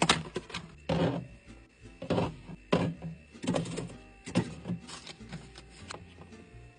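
Knocks and clatters of drinks and other items being handled and set in and out of a mini fridge, a sharp knock every half second to a second.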